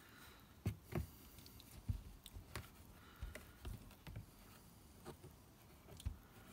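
Faint, scattered small knocks and clicks of hands handling a plastic tub of water and plaster bandage, about a dozen irregular taps.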